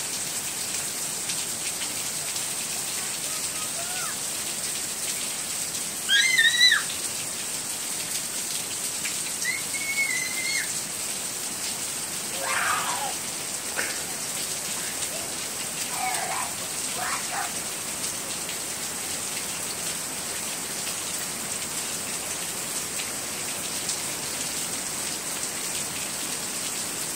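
Heavy rain falling steadily on a lawn, puddles and a porch, an even hiss. A few short high-pitched calls rise above it, the loudest about six seconds in.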